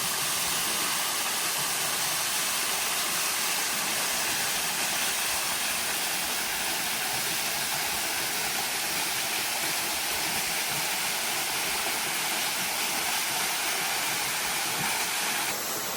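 Waterfall pouring steadily, an even, unbroken rush of falling water.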